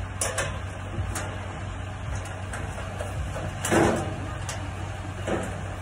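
A few short clanks and knocks of hands, tools and hardware against the metal SCR catalyst housing of a truck's exhaust aftertreatment, the loudest about two-thirds of the way in, over a steady low hum.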